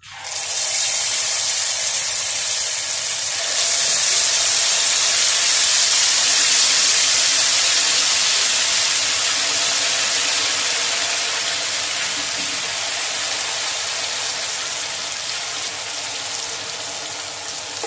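Spoonfuls of urad and chana dal vada batter frying in hot ghee in a pan: a loud, steady hissing sizzle. It starts suddenly as the batter goes in, swells about three and a half seconds in, then slowly eases off.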